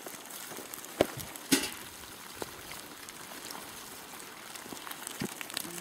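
Two sharp knocks in quick succession about a second in, then a few fainter taps, over a faint steady outdoor hiss.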